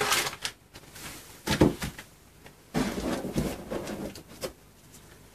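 Cardboard boxes and packaging being handled: rustling and a few light knocks as a small box is opened and set down and a large shipping box is rummaged through.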